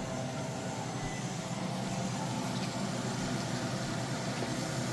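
A steady low machine hum with a soft noise over it.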